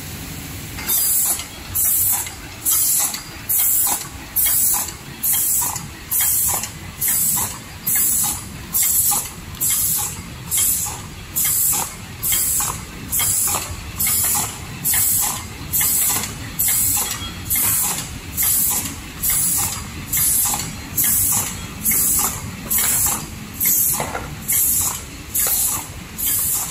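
JD-260 cellophane overwrap machine running, with a short, loud hiss repeating evenly about once a second over its steady mechanical running.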